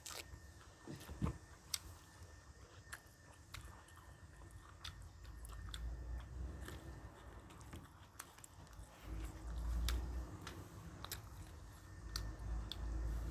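A person eating, chewing with scattered small clicks and crunches of food in the mouth.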